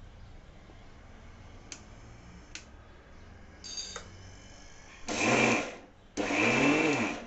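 Electric mixer grinder pulsed on and off, grinding soaked moong dal into a thick paste with no water added. A short blip comes about three and a half seconds in, then two runs of about a second each near the end. Each run rises in pitch and drops away as it is switched off, with a few light clicks of the jar being handled before them.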